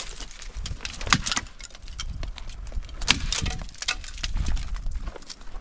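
Footsteps on stony ground: irregular clacks and crunches, with louder knocks about a second in and about three seconds in.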